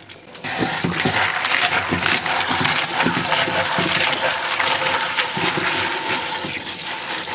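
Kitchen tap water running steadily into a plastic colander of pumpkin seeds in a stainless steel sink while hands rub the seeds under the stream to wash off the pulp. The water comes on about half a second in.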